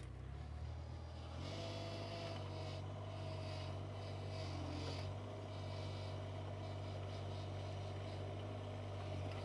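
Engine of a compact tracked mini excavator running steadily as the machine moves in; about a second and a half in the engine note steps up and a higher steady hum joins it, with some light rattling.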